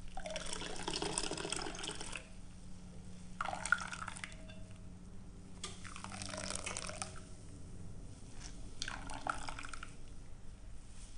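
Blended coconut milk streaming and dripping out of a nut milk bag as it is squeezed, coming in about five separate gushes.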